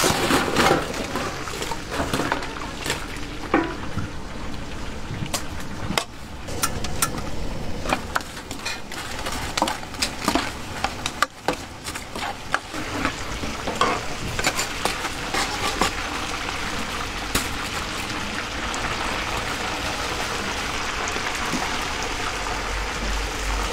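Food frying in hot oil: a steady sizzle that grows louder over the second half, with many sharp clinks and taps of utensils or dishes in the first part.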